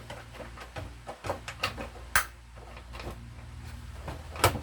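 Scattered small clicks and knocks of vacuum cleaner parts being handled and fitted together, the sharpest about two seconds in and again near the end, over a low steady hum.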